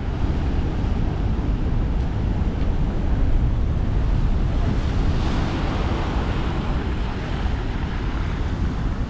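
Heavy king-tide surf breaking and washing, with wind rumbling on the microphone. The hiss of breaking water grows brighter about five seconds in.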